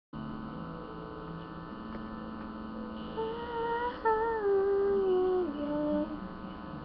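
Soft instrumental intro of a karaoke backing track under a steady electrical hum. Sustained chord tones shift about two seconds in, and a wordless, sliding melody line comes in louder from about three to six seconds in.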